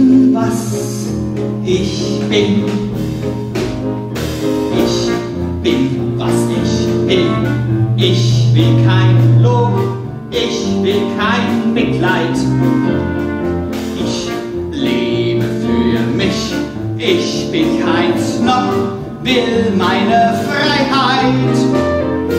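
Musical theatre number: a live band accompanying a man singing in character, with no break in the music.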